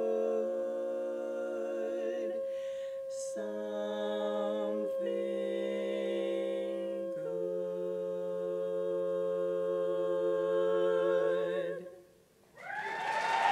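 Women's barbershop quartet singing a cappella in close four-part harmony, holding long chords that shift a few times before the final chord is released about 12 seconds in. Audience applause breaks out right after, near the end.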